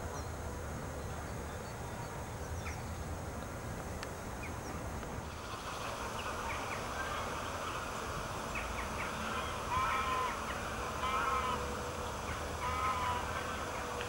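A bird calling three times in the second half, short calls about a second and a half apart, over a steady low rumble.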